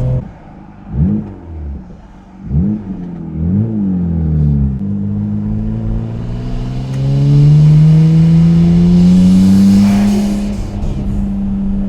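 Nissan Skyline GT-R's twin-turbo RB26 straight-six through a titanium exhaust. The throttle comes off, then the engine revs briefly three times, rising and falling each time. From about halfway it pulls steadily under load, its pitch climbing, loudest near the end before it levels off.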